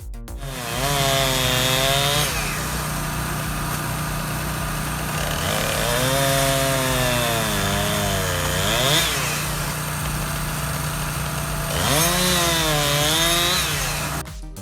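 Bar-mounted gas chainsaw cutting through logs. The engine's pitch sags under load and climbs back three times as the chain bites and works through the wood.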